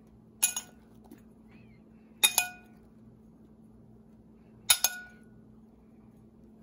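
Metal spoon clinking against a china bowl three times, about two seconds apart, as sliced strawberries are scooped out. Each clink is a quick double tap with a short bright ring.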